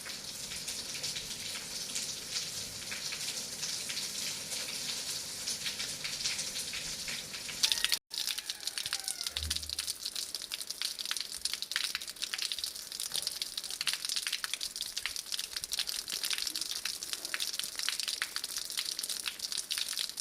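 Heavy rain falling steadily, a dense hiss of many drop impacts. It breaks off for an instant about eight seconds in, then resumes with the drops pattering more distinctly.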